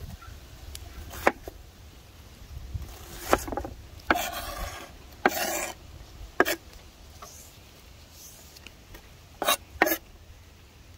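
Knife dicing onion on a wooden cutting board: a handful of scattered sharp knocks of the blade on the board, and two short scrapes about four and five seconds in as the blade sweeps the chopped onion across the wood.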